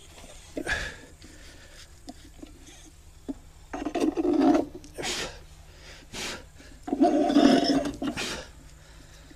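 Hand-tool work on a vehicle's front axle steering knuckle: a series of short scraping and rubbing noises, metal working against metal, the two loudest about four and seven seconds in.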